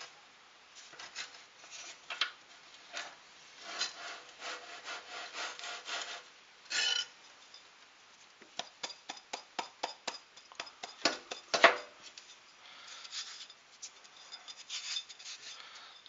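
Hands handling a hollowed-out soft refractory kiln brick and a drill-press vise: irregular scraping and rubbing strokes mixed with sharp clicks and knocks, the loudest knock a little past the middle. No motor is running.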